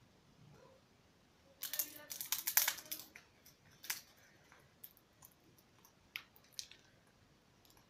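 African grey parrot biting and crunching a woven willow-twig ball with its beak: a burst of crackling snaps for about a second and a half, then a few scattered single cracks.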